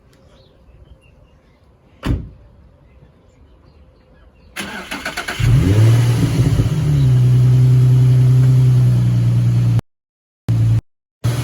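A single knock about two seconds in, then the Infiniti G35's V6 cranks briefly on the starter, catches with a short rev flare and settles into a loud, steady run. The sound drops out abruptly twice near the end.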